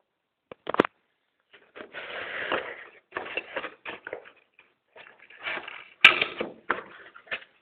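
Phone packaging being opened and handled: irregular rustling and crinkling with scattered clicks, a sharp click about a second in and another about six seconds in.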